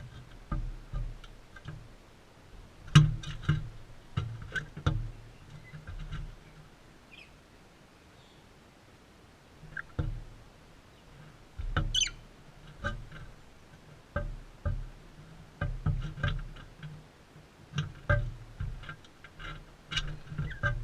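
Crimson rosellas feeding close to the camera: irregular knocks and taps, with a quiet spell of a few seconds in the middle. A short, high chirp sounds about twelve seconds in.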